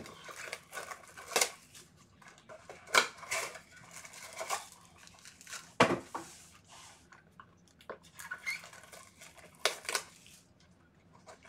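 2020 Bowman Chrome baseball card boxes and packs being handled and torn open: rustling and tearing of wrappers and cardboard, with several sharp taps spread through.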